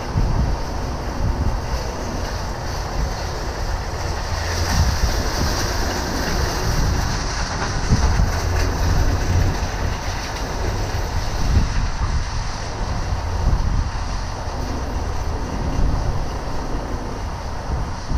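Wind buffeting the microphone outdoors, a steady low rumble with irregular gusts and a brief rise in hiss a few seconds in.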